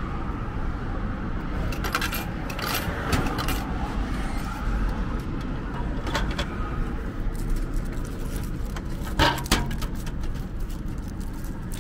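Clicks and clunks of a cake vending machine dispensing a canned cake and of its clear plastic pickup-chute flap being handled, with a sharp double knock about nine seconds in. A steady hum of street traffic runs underneath.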